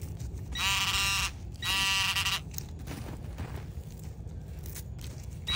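Metal detector sounding a warbling target tone twice, each lasting under a second, about a second apart: the signal of a buried coin, which the detectorist reads as a quarter.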